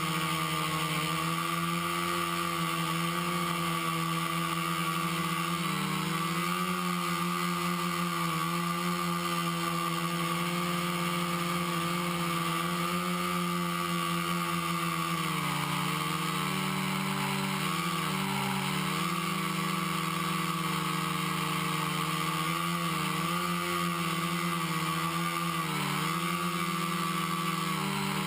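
Quadcopter's four brushless motors (Exceed RC Rocket 2215 920Kv) spinning 10-inch props in flight: a steady whirring hum whose pitch dips and recovers briefly several times as the throttle changes.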